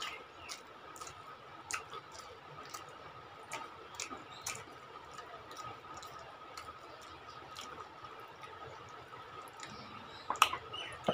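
Eating sounds: scattered soft clicks of mouths chewing and fingers mixing rice and curry, with two louder clicks near the end.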